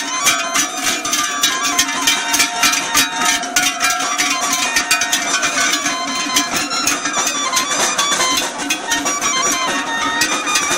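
A traditional folk tune, its melody running over a steady drone, mixed with the dense clanking of the big cowbells worn by the cattle as they walk.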